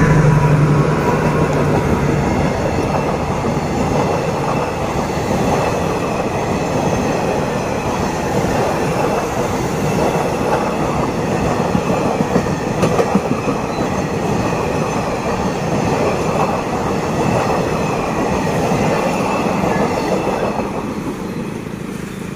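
SRT diesel-electric locomotive No. 5225 passing close by, followed by a long string of passenger coaches rolling past, their steel wheels making a steady rolling noise on the rails. The noise eases near the end as the last coach goes by.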